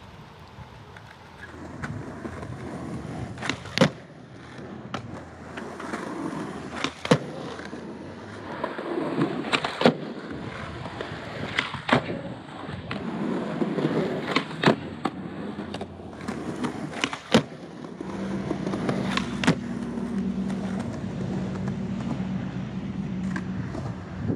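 Skateboard wheels rolling over smooth concrete flatground, broken by sharp clacks of the tail popping and the board landing during ollie and nollie attempts, about every two to three seconds. A steady low hum joins in for the last six seconds.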